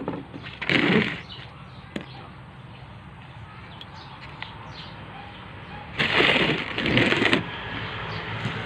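Hand pressing and working a potting mix of compost and sandy soil around freshly planted cuttings: crumbly, rustling scrunches in two bursts, a short one about a second in and a longer one around six to seven seconds in.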